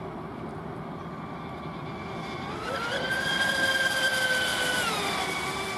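Electric RC speedboat's brushless motor whining at speed: the high whine swells and rises in pitch about two and a half seconds in, holds steady, then drops in pitch near the end.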